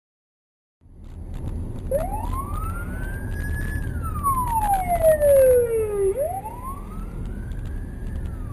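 Emergency vehicle siren wailing in slow rises and falls, about one up-and-down sweep every four seconds, over the steady rumble of a moving car. The sound starts about a second in, after silence.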